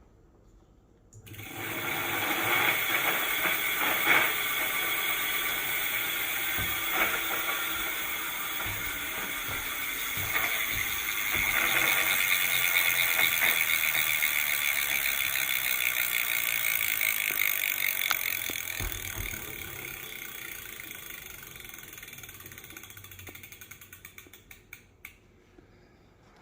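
E-bike's 1500-watt rear hub motor spinning the raised rear wheel, with a steady high whine, starting about a second in. From about two-thirds of the way through the wheel coasts down, and the whine gives way to ticks that come further and further apart. A light rubbing can be heard: something is touching the tire.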